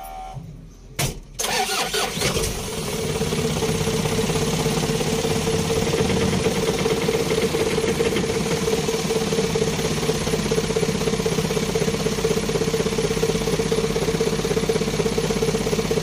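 A vehicle engine starts about a second in, on its newly replaced battery cable, and settles into a steady idle.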